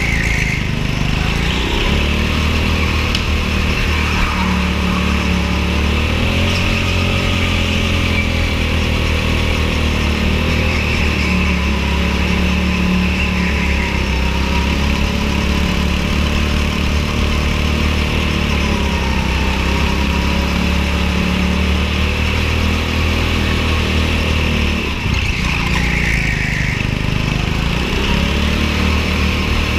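Go-kart engine running under way, its pitch rising and falling again and again as the throttle comes off and back on, over a steady low drone.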